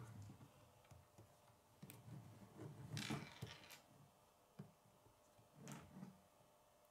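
Faint clicks and rustling of plastic K'nex rods and connectors being handled and snapped together, the loudest cluster about three seconds in.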